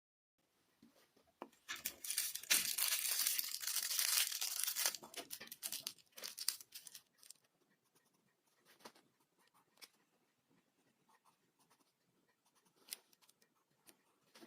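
Tearing and crinkling for about three seconds, then a few scrapes and scattered light taps and clicks.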